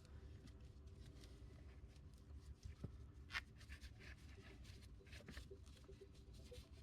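Near silence with faint rubbing and a few small ticks: synthetic winch rope being handled by hand as its braided cover is milked along the splice.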